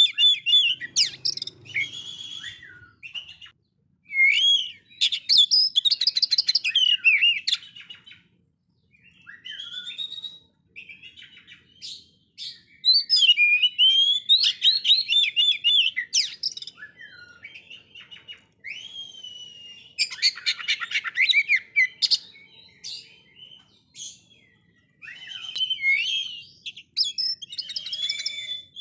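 Male oriental magpie-robin (kacer) singing a varied song of clear slurred whistles, rapid trills and harsher chattering notes. The phrases come in bursts of a few seconds with short pauses between them.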